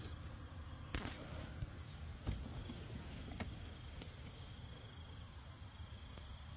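Insects trilling steadily in a high, unbroken chorus, with a few sharp clicks or knocks in the first four seconds.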